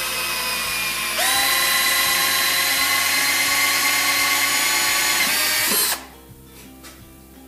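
Cordless drill running a hole saw through the poly pipe inside a tapping saddle: a steady motor whine that rises in pitch and gets louder about a second in, then cuts off suddenly about six seconds in as the cut is finished.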